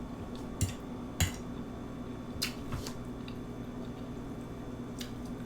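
Close-miked eating: a handful of short, wet clicks and smacks as food is chewed, over a steady low hum.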